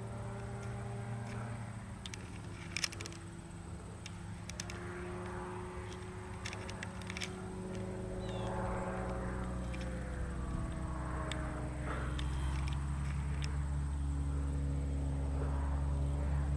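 Light aircraft engine running with a steady low hum, its pitch slowly sliding down and back up, growing a little louder toward the end, with a few scattered sharp clicks.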